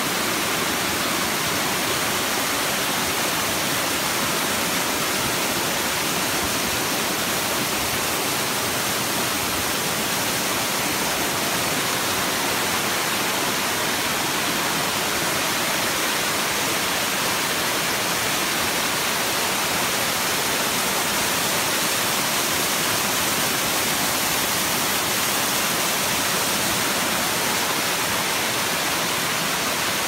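Stream water pouring down a small rocky cascade: a steady, even rush of falling water.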